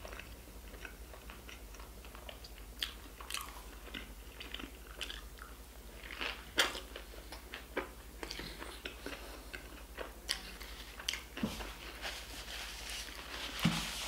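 Close-up sounds of a man biting and chewing a burger: scattered wet mouth clicks and smacks.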